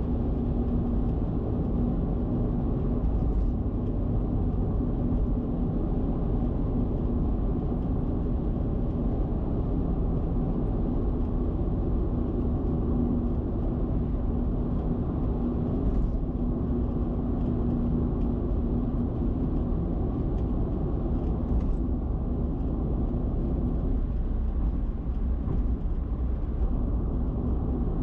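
Car driving at expressway speed: steady tyre, wind and engine noise with a low hum that fades about two-thirds of the way through.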